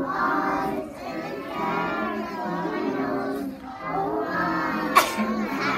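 A group of young children singing a seasonal song together in unison, with one sharp knock about five seconds in.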